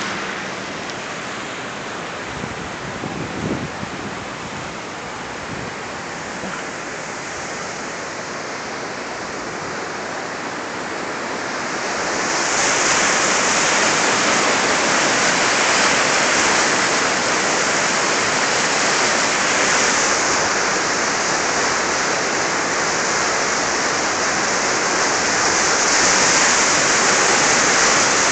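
Muddy floodwater rushing and churning in a river over its banks, a steady noise of moving water that gets louder about halfway through.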